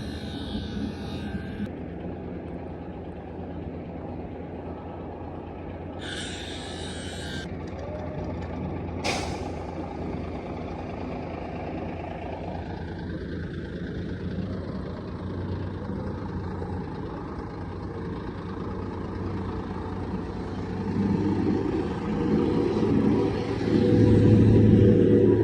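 Heavy truck traffic: a diesel engine running steadily, with a short hiss of air, like an air brake, about six seconds in, a sharp click a few seconds later, and a truck engine growing louder near the end.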